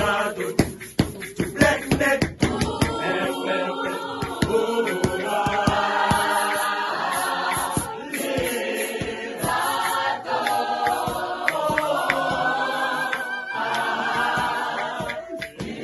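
A cappella choir singing in several-part harmony, with a run of sharp percussive hits in the first couple of seconds.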